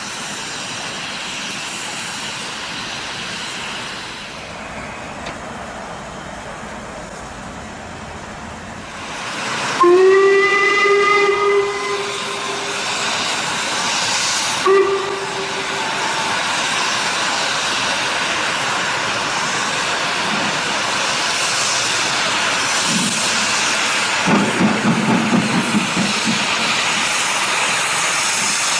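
LMS Stanier Black Five 5MT steam locomotive 44871 hissing steam, then sounding its whistle about ten seconds in with one long blast and a short second toot. Near the end the regular beat of its exhaust comes in as it moves off with its train.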